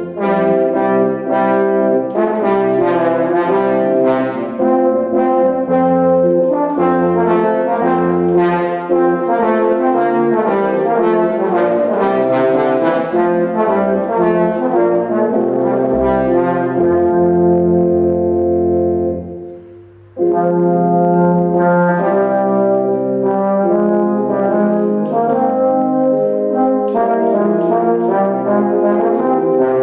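Brass duet of trumpet and tenor horn with organ accompaniment. For most of it the trumpet rests while the tenor horn carries the line over sustained organ chords. About two-thirds through, the music fades into a brief pause, then starts again.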